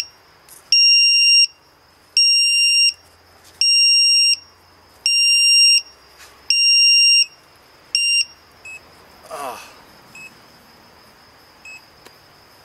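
The mini tricopter's buzzer sounding its alarm in steady, high beeps about 0.7 s long, roughly one every 1.4 s. This is the low-battery warning. The beeps stop about eight seconds in, leaving a few short, faint beeps.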